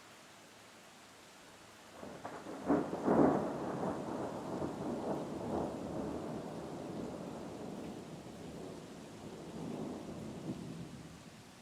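A thunderclap in a rainstorm: it breaks about two seconds in and rolls on as a long rumble that slowly fades away, over a steady soft hiss of rain.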